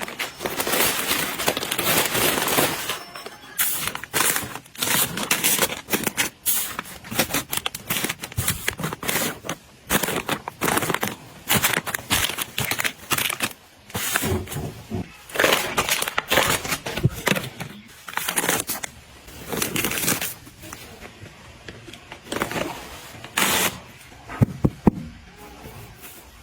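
Plastic packaging crinkling and rustling in irregular bursts as it is handled, with a couple of sharp taps near the end.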